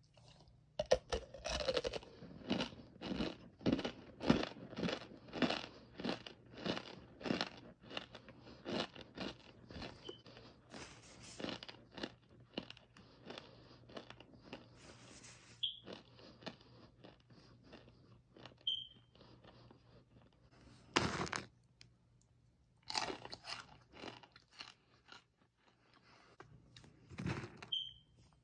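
Crunchy chewing of chalky chunks of Japanese kudzu starch: a run of crisp bites and crunches, nearly two a second, through the first half, then a few separate crunches later on.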